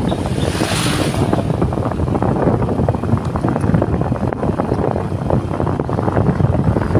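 Wind buffeting the microphone over the steady running of a motorcycle carrying four riders. A brief hiss about a second in, as an oncoming truck passes.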